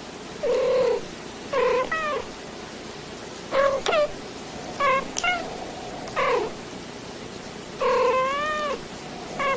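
Two house cats making short meows one after another, about seven calls in all, most under half a second. The longest call, about 8 s in, wavers up and down in pitch.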